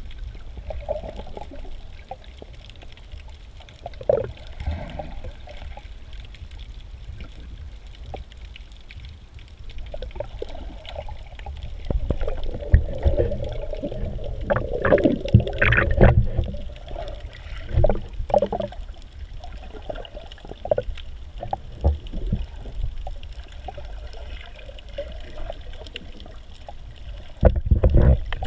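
Muffled underwater sound of snorkelling recorded below the surface: a steady low water rumble with gurgling and bubbling, busiest and loudest in the middle, and a few knocks scattered through.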